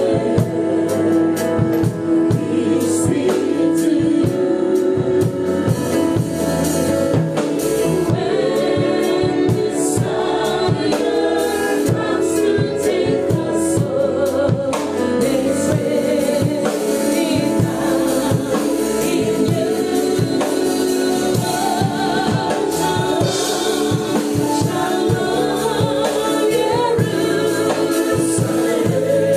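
Live gospel worship music: a man and a woman sing lead into microphones, with backing singers, over bass guitar and a drum kit keeping a steady beat.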